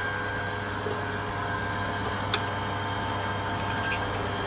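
Steady machine hum with a low drone and faint steady whine tones, broken by one sharp click about two seconds in.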